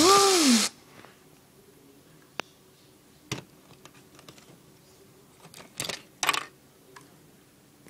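A loud burst with a pitched sound that rises then falls, cut off less than a second in. Then a few scattered light clicks and knocks of LEGO plastic pieces as a hand moves a green LEGO vehicle against a LEGO train.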